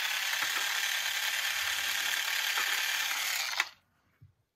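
Small battery-powered toy drill running with a steady whirring, ratcheting rattle, which cuts off suddenly near the end.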